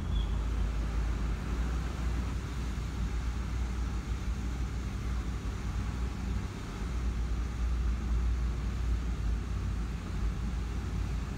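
Car driving up a concrete parking-garage ramp: a steady low rumble of engine and tyres.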